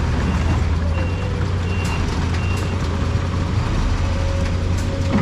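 Heavy dump truck's diesel engine running with a steady low rumble, while a reversing alarm beeps about once every two-thirds of a second and stops about halfway through.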